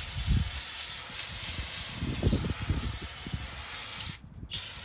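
Aerosol brake parts cleaner spraying in a steady hiss that cuts off suddenly about four seconds in, then a short spurt near the end.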